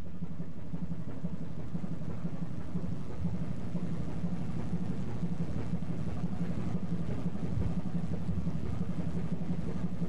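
Boat engine running steadily, a low even rumble with a fast pulsing beat.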